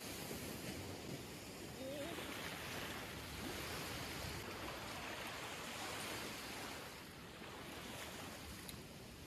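Small waves washing onto a sandy beach, an even surf hiss that swells a couple of seconds in and eases off near the end.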